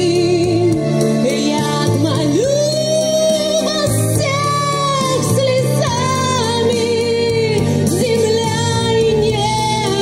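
A woman sings a slow ballad into a microphone over recorded accompaniment played through a loudspeaker. She holds long notes with vibrato, and one sustained note starts about two and a half seconds in.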